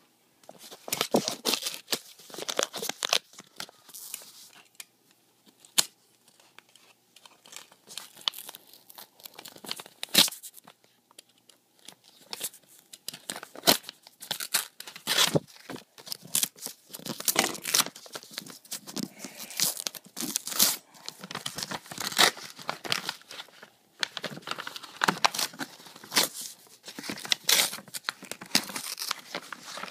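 Paper pages of a thick manual being flipped and handled, a long irregular run of rustles and sharp page flicks with a few short pauses.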